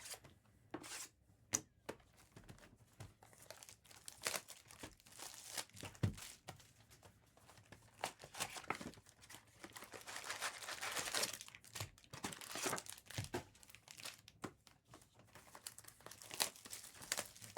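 Trading-card pack wrappers being torn open and crinkled, with the crackle of the wrapper plastic and the handling of cards, in a run of short sharp rustles. There is a longer stretch of continuous crinkling around the middle.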